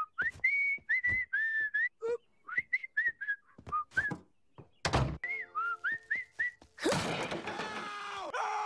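Someone whistling a jaunty tune in short notes with little upward slides. About five seconds in there is one heavy thump; the whistling picks up again, and near the end a cartoon man lets out a long scream.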